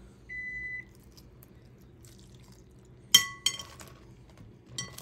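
A short electronic beep about half a second in. About three seconds in comes a loud, sharp clink with a brief ring, then a lighter one just after: a metal pan and tongs knocking against a ceramic bowl as the last of the sauce is dumped over the chicken.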